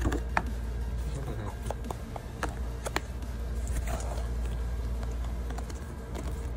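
Cardboard watch-band packaging handled and unfolded: scattered sharp clicks and short rustles of stiff card, over a steady low hum.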